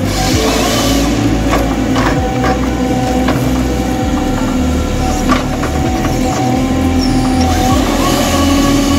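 John Deere 1470G harvester's diesel engine running under load, with hydraulics driving the boom and harvester head as it works a pine at its base. There is a steady whine, and a few sharp knocks come from the head.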